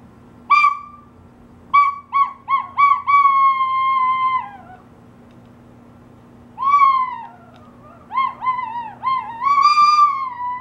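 A Chihuahua howling in high-pitched yips that run into long held howls. A couple of single yips near the start are followed by a quick string of yips about two seconds in, which becomes a drawn-out howl that falls off in pitch. A second falling howl comes a few seconds later, and near the end another run of yips rises into a long steady howl.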